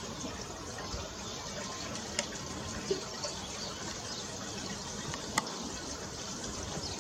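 Steady outdoor hiss with a few short, faint clicks or chirps.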